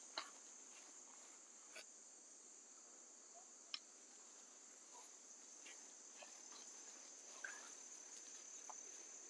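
Near silence: a faint, steady, high-pitched drone of insects, with a few faint clicks.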